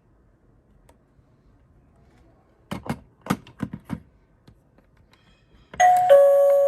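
About five sharp taps in quick succession. Then, near the end, the eyeball doorbell prop's electronic chime sounds loudly through its small speaker: a steady tone followed by a lower one, like a ding-dong.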